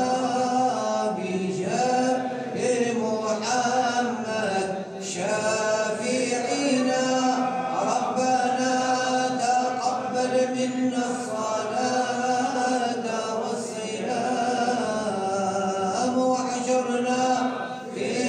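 Annaba-style Sufi samāʿ chanting: a devotional melody sung in long, drawn-out held notes that bend from pitch to pitch, with brief pauses between phrases.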